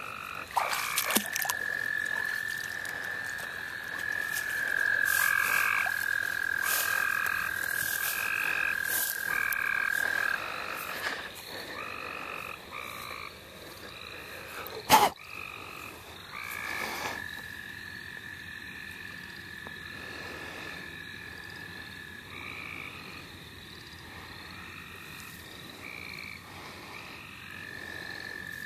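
Spring night chorus of frogs and toads: a long, steady trill, typical of an American toad, runs for many seconds, breaks off and starts again, while shorter trills of about half a second repeat over it. A few handling clicks come near the start, and one sharp knock about fifteen seconds in is the loudest sound.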